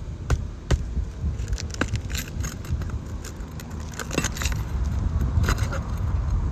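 Asphalt roof shingles being lifted and worked loose by hand and tool: scattered clicks, scrapes and light rattles, busier in the second half, over a low rumble of wind on the microphone.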